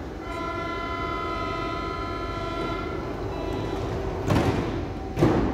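Berlin U-Bahn train's door-closing warning: a steady multi-note warning tone for about three seconds, then the sliding doors shutting with two short bangs about a second apart, the second louder.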